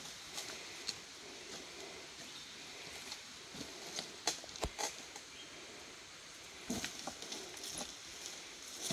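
Footsteps knocking and clattering on a bamboo bridge: scattered sharp knocks, several in quick succession around the middle and again near the end, over a steady jungle background.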